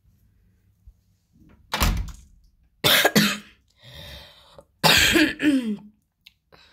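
A boy who is ill coughing: three loud coughs about a second apart, with a softer breath between the last two.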